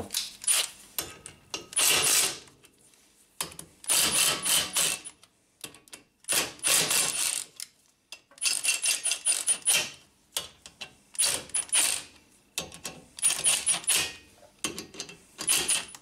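Cordless impact wrench hammering in about eight short bursts, each a second or so long with brief pauses between, as it breaks loose the four bolts on the wheel hub face of a Honda Accord's captive-rotor front hub.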